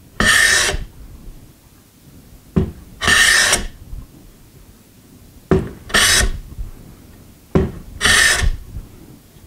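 A Stanley hand plane taking four strokes along the edge of a wooden box, each a short hiss as the blade cuts a shaving, about two and a half seconds apart.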